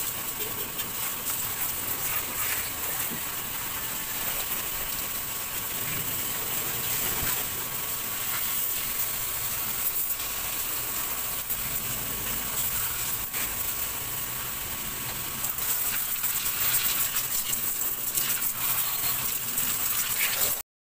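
A steady hiss of water spraying from a hand-held spray gun on a hose, washing down a car's engine bay. The sound cuts off suddenly near the end.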